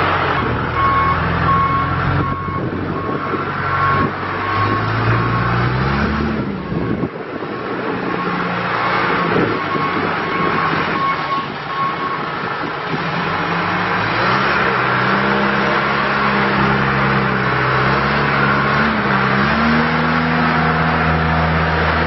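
2003 John Deere 310G backhoe loader's diesel engine running as the machine drives, its back-up alarm beeping evenly for the first half, then stopping. The engine speed rises and falls several times as it moves.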